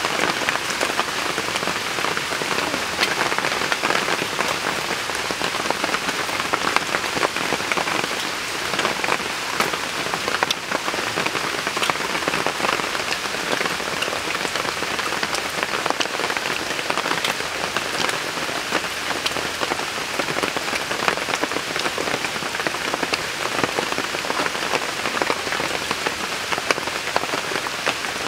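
Steady rain pattering on surfaces, an even hiss dense with small drop ticks.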